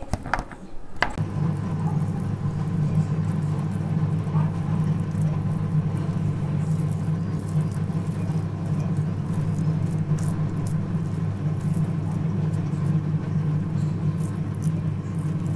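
In the first second, a few soft wet clicks and squelches of hands kneading raw chicken mince. Then a steady low hum starts abruptly and holds evenly, with faint soft ticks of the mince being pressed into a patty.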